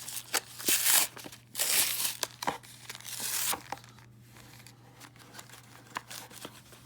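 A blister pack of baseball cards being torn open by hand: several loud ripping and crinkling bursts of packaging in the first three and a half seconds, then quieter rustling and small clicks.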